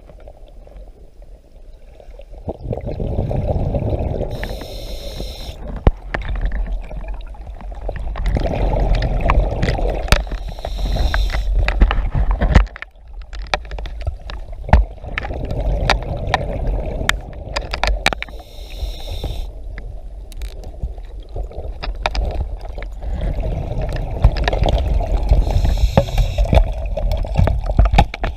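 Scuba diver breathing underwater through an open-circuit regulator: exhaled bubbles rumbling and gurgling in swells every six seconds or so, each followed or overlapped by a short hiss of the regulator. Scattered sharp clicks run through it.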